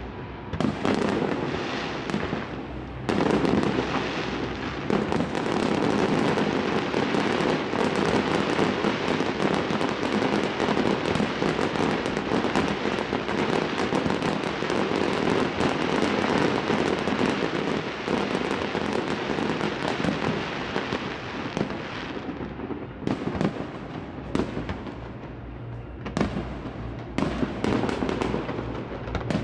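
Fireworks display: a rapid, almost continuous barrage of aerial shells bursting and crackling, with comets launched from the ground. Near the end it thins into more separate bangs.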